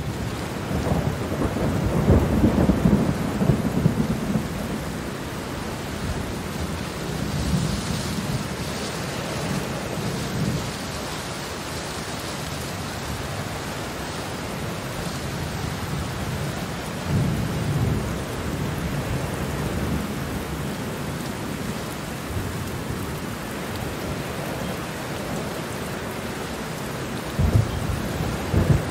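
Steady rain with rolling thunder. Heavier rumbles come a couple of seconds in, again a little past halfway, and once more near the end.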